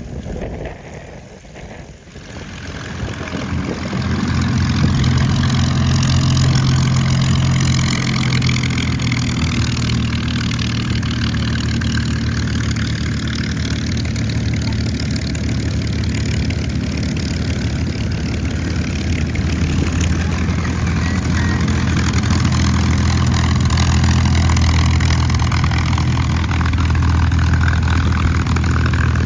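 P-51 Mustang's V-12 piston engine running: it comes up loud about three seconds in and holds a steady, deep drone, with a slowly sweeping whoosh in the upper hiss.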